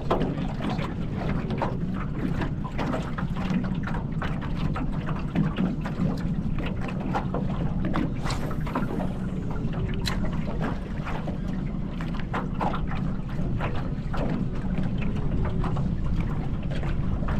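Small aluminium fishing boat on open water: a steady low rumble with wind on the microphone and many small scattered ticks and knocks. About eight seconds in there is a brief swish as a spinning rod is cast.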